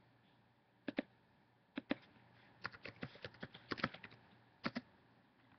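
Typing on a computer keyboard: a few scattered pairs of keystrokes, with a quicker run of keys in the middle.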